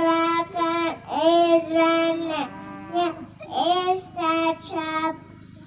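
A four-year-old girl reciting the books of the Bible in a sing-song chant into a microphone, each name drawn out on a steady, held pitch with short pauses between.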